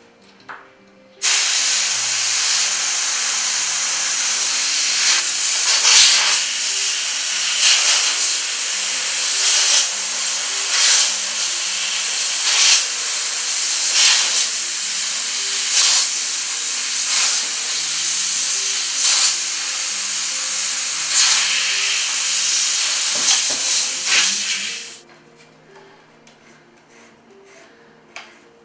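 Jet of compressed air blowing dust off a TV circuit board: a loud steady hiss that starts abruptly about a second in, surges roughly once a second, and cuts off about 25 seconds in.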